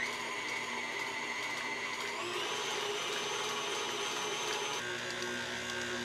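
KitchenAid Artisan stand mixer running at medium-high, its wire whisk whipping thick, chilled chocolate ganache: a steady motor whine whose pitch steps up about two seconds in.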